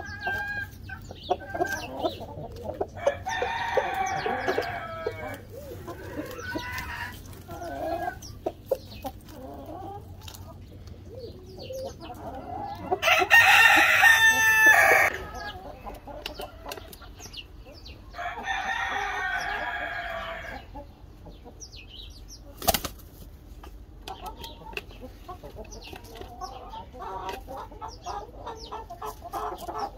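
Light Brahma chickens clucking and calling, with drawn-out calls about two seconds long near the start and again about two-thirds of the way in. Midway a louder call lasts about two and a half seconds and is the loudest sound here. A single sharp click comes a little later.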